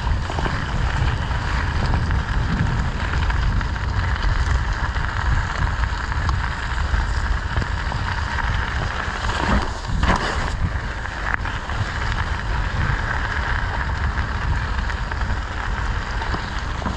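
Wind buffeting the microphone and bicycle tyres rolling over a dirt singletrack trail, a steady rumbling hiss while riding.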